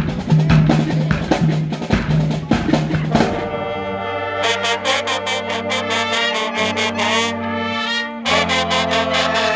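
High school marching band playing: drums and a short repeated low sousaphone note for about the first three seconds, then the brass section comes in with loud held chords over the drums, the chord changing twice.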